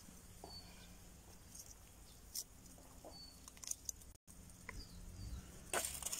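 A few faint clicks and scrapes of a metal fork against a wire grill basket as grilled pork shashlik is lifted onto a paper plate, over quiet outdoor background.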